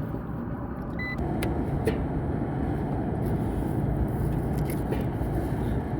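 Steady low rumble with a short electronic beep about a second in and a few light clicks, as a digital multimeter is set up and its probes put to the condenser fan motor leads to check the windings.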